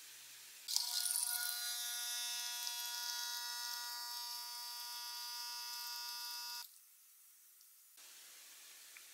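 Pump of an illy capsule espresso machine buzzing steadily while brewing a shot, starting abruptly about a second in and cutting off after about six seconds.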